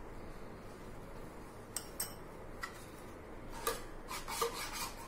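Steel spoon clicking and scraping against an aluminium baking tin while sauce is spread: a few sharp separate clinks about two seconds in, then a quicker run of clinks and scrapes near the end.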